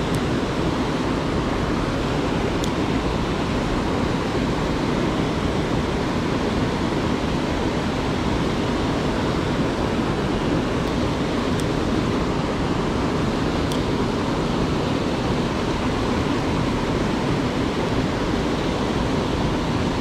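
Mountain stream rushing steadily, with a few faint high clicks.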